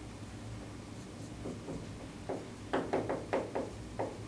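Dry-erase marker writing on a whiteboard: a quick run of short strokes and taps that starts about a second and a half in, as a word is written out.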